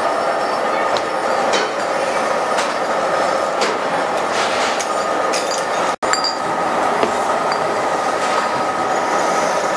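Steady machinery noise from a bottle conveyor line, with scattered light clicks and clinks of plastic bottles knocking together. The sound cuts out for an instant about six seconds in.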